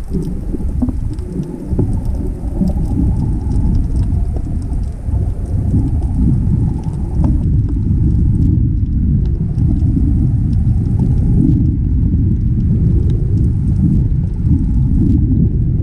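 Underwater camera audio: a loud, muffled low rumble of water moving against the camera housing, with scattered faint crackling clicks throughout.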